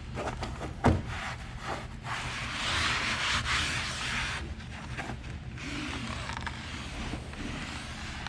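Carpeted BedRug bed mat being set down and rubbed and pressed into place against a pickup truck bed: a run of scuffing and rubbing, loudest in the middle, with a thump about a second in and scattered light knocks.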